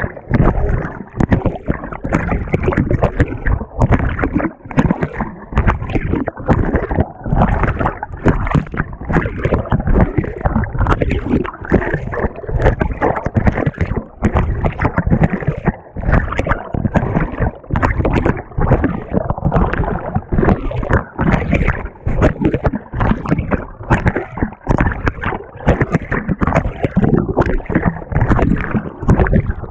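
Water and laundry churning and sloshing in a GE GTW220ACKWW top-loading washer, heard from right on the turning agitator, in rapid, uneven surges.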